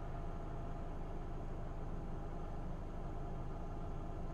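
A vehicle engine idling: a steady low hum that does not change.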